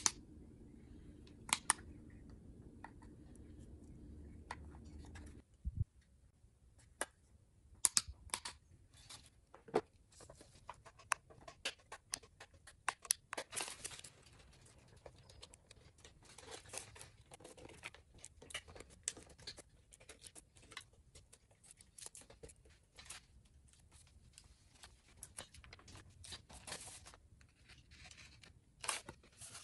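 Hands working with reflective foil tape and paper: crinkling, peeling and tearing, with scattered clicks and scratches on a wooden bench. A low hum fills the first few seconds and cuts off suddenly.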